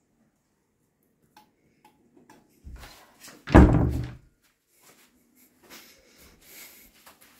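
An interior door being handled, with a few small clicks, then a low bump and a heavy thump that dies away in under a second, followed by faint rustling.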